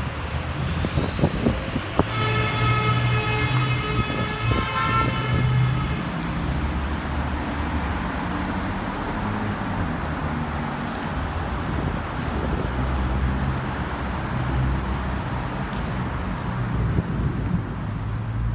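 A locomotive's multi-chime horn sounds once for about four seconds, starting about two seconds in, over the steady low rumble of a heavy engine running. A whine climbs steadily in pitch through the first seven seconds.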